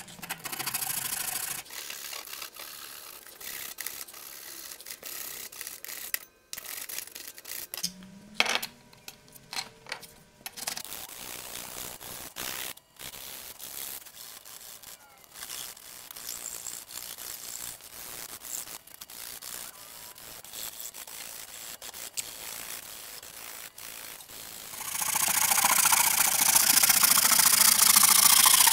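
Flexible flush-cut hand saw rasping back and forth through walnut inlay, trimming it flush with a maple butcher-block cutting board, in several short edited stretches. Near the end a louder, denser scraping takes over.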